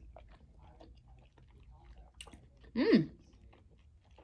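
Close-up chewing of a green-lipped mussel, with soft wet mouth clicks. About three quarters of the way through comes a short hum of enjoyment, falling in pitch.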